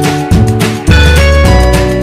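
Upbeat background music with a bouncy bass line and a steady beat, with guitar.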